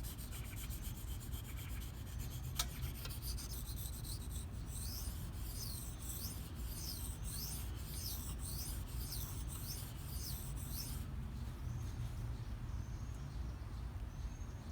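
Steel knife blade (S30V) stroked back and forth on a wet Shapton Pro 1000-grit whetstone, a rhythmic scraping of about two strokes a second that stops about 11 seconds in.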